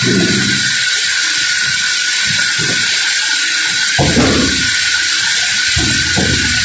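Sawmill workshop machinery running with a loud, steady hiss, broken by a few short low swooshes that drop in pitch, about four seconds in and twice near the end.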